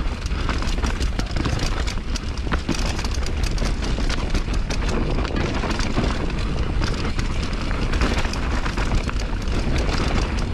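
Mountain bike riding fast down a rough, loose dirt trail: tyres crunching over rocks and ruts, with a constant clatter of small knocks from the bike, over a steady wind rumble on the microphone.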